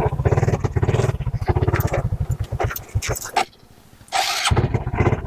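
Motorcycle engine running at low revs with an even pulse. The sound drops away for about half a second a little past three seconds in, then picks up again.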